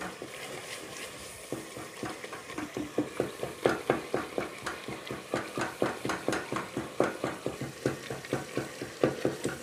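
Wooden spoon stirring and scraping a thick tomato-onion masala against a metal pot, with several knocks and scrapes a second over the sizzle of the masala frying in oil. The stirring grows a little stronger about three and a half seconds in.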